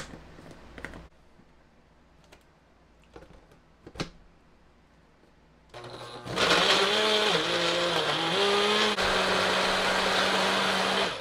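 Plastic clicks as a personal blender cup is fitted, then the 350-watt personal blender's motor runs for about five seconds, starting about six seconds in. Its pitch dips and wavers as the blades work through frozen strawberries and a frozen coconut bar, then holds steady.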